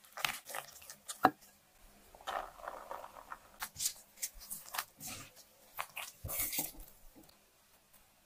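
A wooden spatula knocks and scrapes against a bowl while tapioca starch is mixed in, with a few sharp clicks in the first second or so. Then come irregular crumbly, squishing and rustling noises as the starchy dough is kneaded by hand, dying away about seven seconds in.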